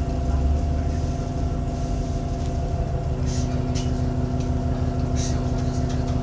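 New Flyer D40LF diesel transit bus engine running steadily, a drone of several steady tones, with a new higher tone joining about three seconds in. This is the engine sound the uploader calls weird. A few short hisses are heard over it.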